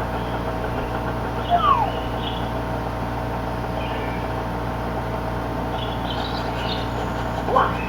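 Nintendo 64 game audio from the TV while the repaired controller is tested: a few short chirps and a brief falling glide over a steady electrical hum.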